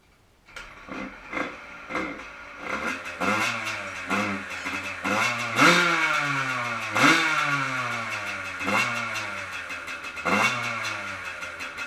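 Freshly rebuilt Yamaha YZ80 two-stroke single-cylinder dirt bike engine firing up about half a second in and revved in repeated throttle blips, each a quick rise and fall in pitch. This is the engine running again after new crank seals and a new water pump seal.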